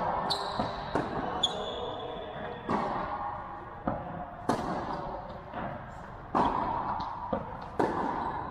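A tennis rally: rackets striking the ball and the ball bouncing on the court, a sharp crack every second or two, echoing in an indoor tennis hall. Two short high squeaks, typical of shoes on the court surface, come in the first second and a half.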